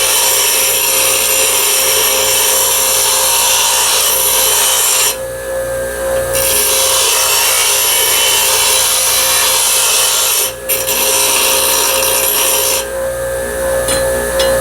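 Belt sander running with a steady hum while a forged steel knife blank is ground on the belt, a harsh grinding hiss. The grinding stops for about a second around five seconds in, briefly near ten and a half seconds, and again shortly before the end, as the blade comes off the belt, while the motor keeps running.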